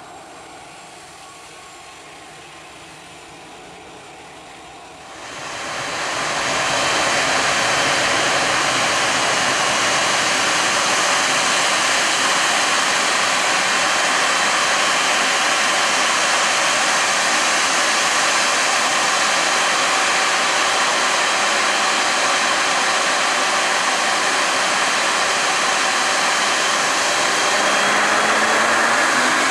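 Wide-body jet airliner's engines spooling up about five seconds in to a loud, steady jet roar with a high whine, as for a takeoff run; a rising whine comes in near the end.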